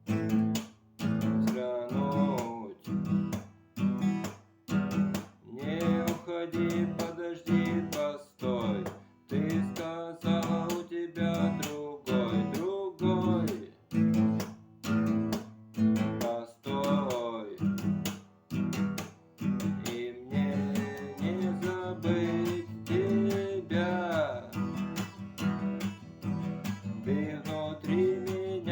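Acoustic guitar strummed in a steady, even rhythm, with a melody line over the chords.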